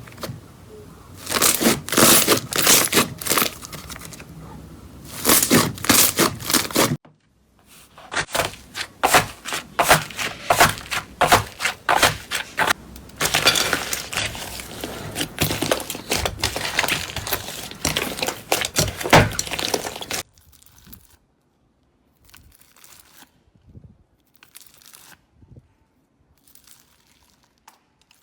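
Slime being squeezed, poked and stretched by hand, giving dense crackling and popping clicks. A short gap about seven seconds in, and from about twenty seconds on only sparse, much quieter crackles.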